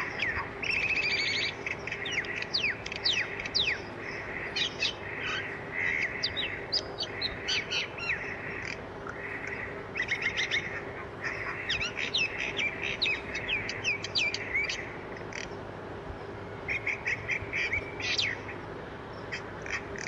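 Small birds chirping in clusters of short, sharp, high calls, over a faint steady hum.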